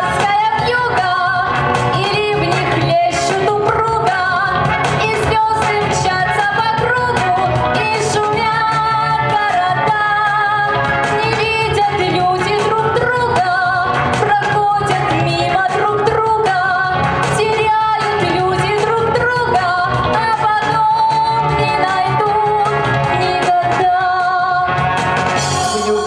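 A woman singing a song into a handheld microphone over instrumental accompaniment, her held notes wavering with vibrato.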